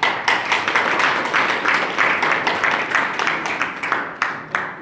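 A small audience clapping, beginning suddenly, then thinning out to a few last separate claps near the end.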